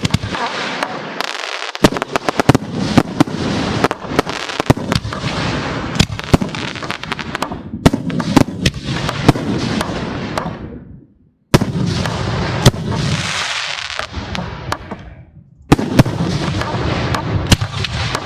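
Aerial fireworks display: a dense barrage of shell bursts, sharp booming reports over continuous crackle. The sound breaks off abruptly twice and starts again at full intensity.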